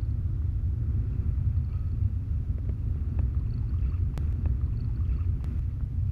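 Wind buffeting an action camera's microphone: a steady low rumble, with two sharp clicks about four and five and a half seconds in.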